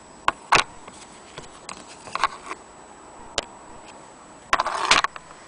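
Handling noise: scattered sharp clicks and taps, the loudest about half a second in, and a short rustling scrape near the end.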